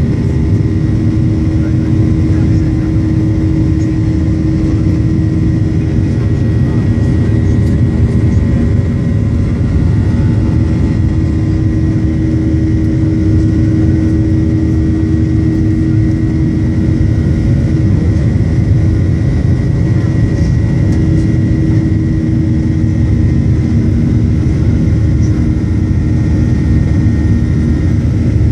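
Boeing 737-800 jet engines and airflow heard from inside the cabin during the climb after takeoff: a steady loud rumble with a steady hum and a fainter high whine on top.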